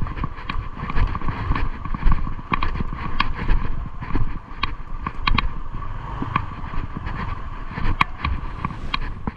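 Honda ADV150 scooter riding at around 50–58 km/h: wind buffeting the camera microphone over a low rumble from the engine and road, with a steady hum. Irregular sharp ticks and clicks come every half second or so.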